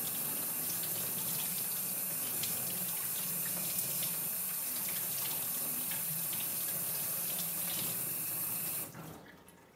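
Hot water running from a faucet into a utility sink, splashing over a wool-wrapped bar of soap in netting held in the stream to soak it through. The tap is shut off abruptly near the end.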